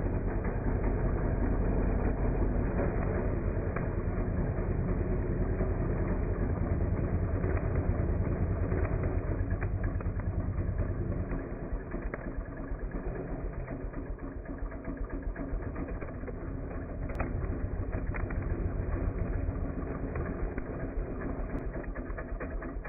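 Weed whacker (string trimmer) motor running steadily with a rapid, continuous rattle, dropping somewhat in level about halfway through.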